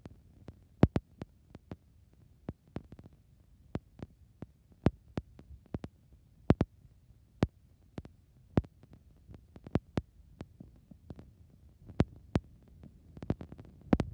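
A seasoning-salt shaker being shaken and tapped: irregular sharp taps and clicks, about two a second.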